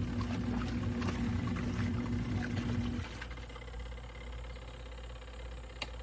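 Portable twin-tub washing machine's motor humming without getting the load moving, then cutting off abruptly about halfway through, with faint ticking and a sharp click near the end. It is the sign of a faulty washer that tries to run but does not wash.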